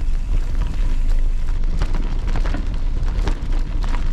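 Wind buffeting the microphone of a camera on a moving bicycle, a loud steady low rumble, with frequent small clicks and rattles from the bike running over a rough dirt towpath.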